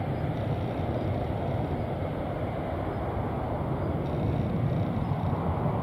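Twin-engine jet airliner's engines running at high power as it rolls down the runway away from the listener: a steady low rumble with a noisy roar above it, growing slightly louder near the end.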